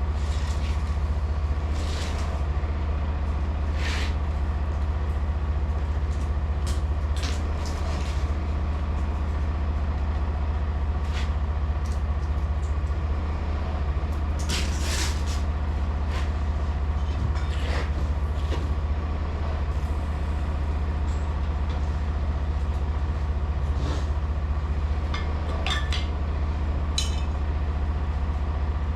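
Semi truck's diesel engine idling with a steady low rumble, with scattered short clicks and knocks over it.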